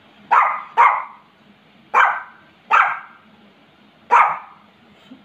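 Small dog barking five times in short, sharp yaps, two close together, then a pair, then one more. It is demand-barking for its toy.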